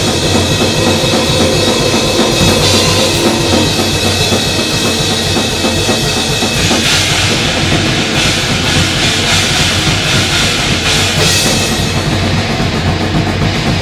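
A goregrind band playing loudly at rehearsal: a drum kit hammering fast with bass drum and cymbals under a dense, distorted wall of heavy-metal sound.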